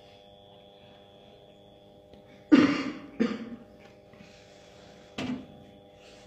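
A person coughs loudly about two and a half seconds in, then more briefly just after, with a short sharp sound near five seconds. Under it runs a steady electrical hum with a faint high whine.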